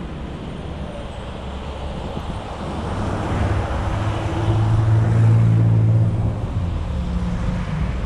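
Car driving in town traffic: steady road and engine noise. It grows louder a few seconds in, with a low engine hum strongest around five seconds in, then eases off near the end.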